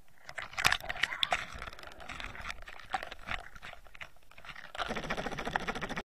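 Crackling clicks, knocks and sloshing picked up by a waterproof camera being handled in the water at a landing net, as a tiger muskie is netted. A denser rattle sets in about five seconds in, and the sound cuts off suddenly at the end.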